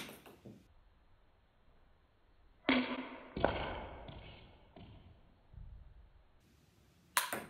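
Sharp click of a ping-pong ball off a paddle. Then, in slowed-down replay, two deep knocks a little under a second apart as the ball strikes the wooden Jenga tower, the second dying away slowly. Near the end comes another sharp ping of a ball off a paddle.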